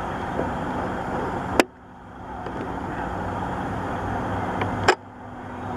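Two sharp SLR camera shutter clicks about three seconds apart, each followed by the background dropping away and swelling back over a second or so. Underneath, a steady low drone of distant engines.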